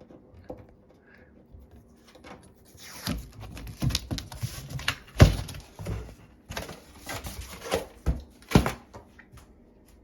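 A kitten scrambling about in a wine rack: scuffling and rustling with several sharp knocks, the loudest about five seconds in and another near the end.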